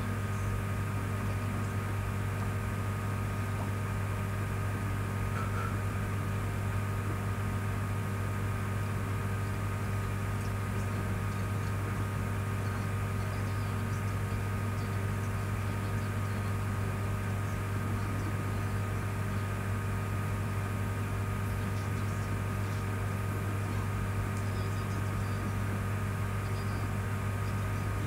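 Steady low hum with a few faint constant tones above it and a light hiss, unchanging throughout: background room and equipment noise.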